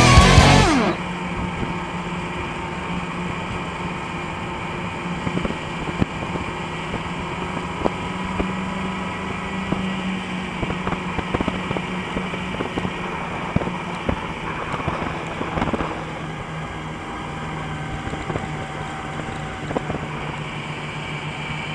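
Snowmobile engine running steadily at trail speed, heard from the rider's seat, with scattered short knocks from the ride and a slight change of pitch about two-thirds of the way through. A song on the soundtrack cuts off within the first second.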